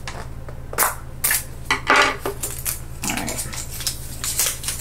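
A thin metal tool clicking and scraping against a hard plastic Miniverse Make It Mini capsule as its layer is pried loose, in a few sharp snaps and short scrapes, followed by a softer rustle of the capsule being pulled apart. A steady low hum runs underneath.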